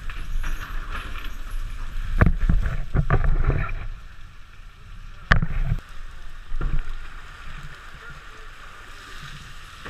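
Shrimp trawl net running over the boat's rail into the sea, with water sloshing, a low rumble of wind on the microphone and a few knocks. The sharpest knock comes about five seconds in, then it settles to a quieter, steady wash.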